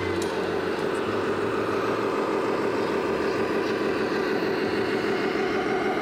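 Simulated diesel truck engine sound from a radio-controlled Scania semi-truck's sound module, running steadily at a low, idle-like pace.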